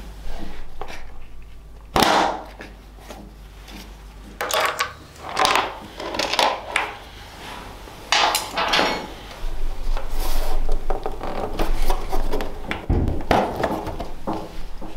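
Hand-tool work on a motorcycle's plastic side panel: irregular metallic clicks and clatter from a socket wrench and bolts, with a sharp knock about two seconds in and busier handling noise near the end as the panel is lifted off.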